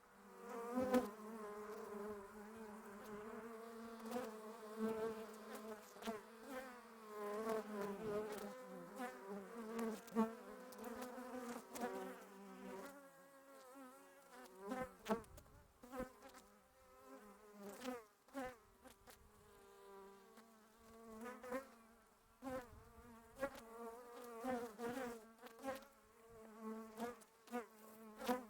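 Bees buzzing, several droning hums overlapping, each swelling and fading as it passes close. The buzzing thins out about halfway through, with separate passes coming and going.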